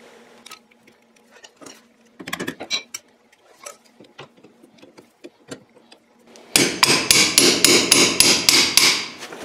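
Scattered metal clicks and taps of pliers working a cotter pin in a steel castellated axle nut on a Kubota RTV 900 front hub. Then, about six and a half seconds in, a quick run of about a dozen hammer blows at four or five a second, driving the pin out.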